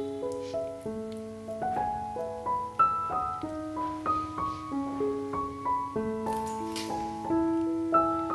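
Background piano music, a gentle melody of single notes. A brief scrape, likely the metal spoon in the baking tin, comes about six seconds in.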